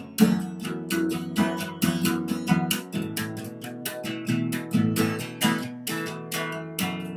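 Acoustic guitar strummed in a steady rhythm, ending on a final chord struck near the end and left to ring.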